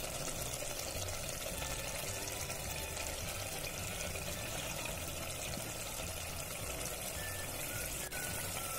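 Oil-heavy masala paste and red chilli powder bubbling and sizzling steadily in an aluminium pot as the spice base fries in the oil.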